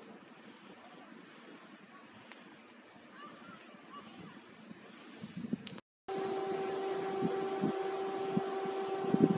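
Insects, cicadas by the steady high shrill, singing in the burnt olive grove. After a brief dropout about six seconds in, a steady low motor hum joins them, with a few light knocks near the end.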